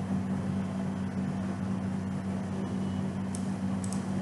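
Steady electrical hum with a constant hiss, from the recording setup's background noise, with a few faint clicks about three and a half and four seconds in.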